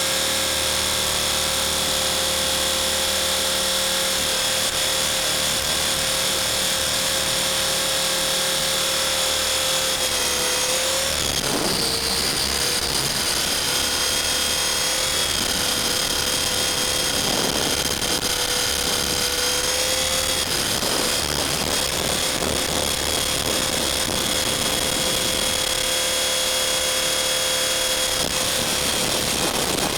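Blade 450 3D electric RC helicopter in flight: the steady high whine of its brushless motor and drive gears over rotor noise. The pitch dips briefly about ten to twelve seconds in and again near twenty seconds.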